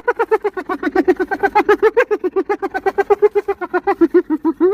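Hyena giggling: a fast, unbroken run of high, staccato hoots, about nine a second, that breaks off at the very end.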